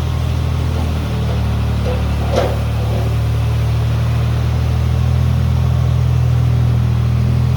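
An engine or motor running steadily with a low drone, with a single short knock about two seconds in.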